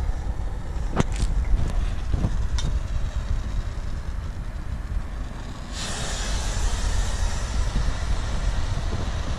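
A small pile of loose copper-oxide blue star composition catching and burning on the ground: a steady hissing rush starts suddenly about six seconds in and keeps going. Before it, a few short clicks sound over a steady low rumble.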